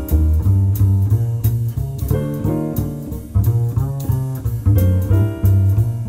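Background instrumental music in a light jazz style, with a plucked bass line, guitar and regular high ticks like a hi-hat.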